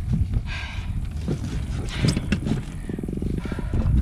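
Low rumble of wind on the microphone, with knocks and clatter from a landing net being handled against a plastic kayak, and a brief fast rattle about three seconds in.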